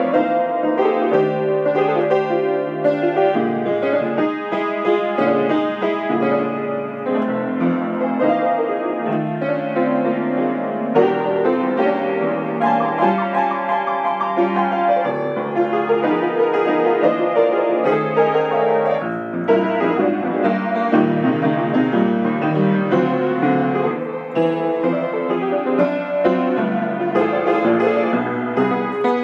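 Grand piano played solo in a blues style: continuous chords in the left hand under a running melody in the right, with no pause.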